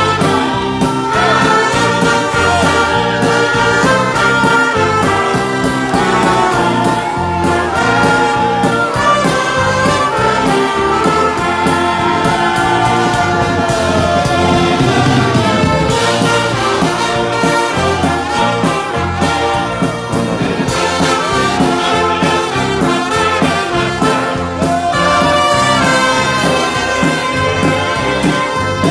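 Live gospel band with brass, violins and a drum kit playing together.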